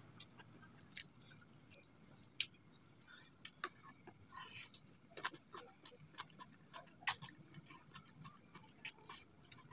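Close-up eating sounds of a man chewing and slurping mie ayam chicken noodles. The sounds are quiet, with many irregular small mouth clicks; the sharpest come about two and a half and seven seconds in.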